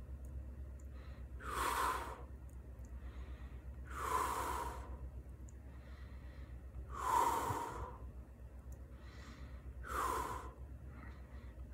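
A person breathing audibly close to the microphone: four breaths about three seconds apart, over a steady low hum.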